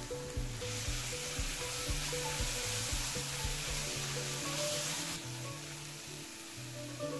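Sliced ginger and spices sizzling in hot oil in a frying pan while being stirred with a spatula. The sizzle grows louder about half a second in and eases off about five seconds in. Background music with a steady beat plays underneath.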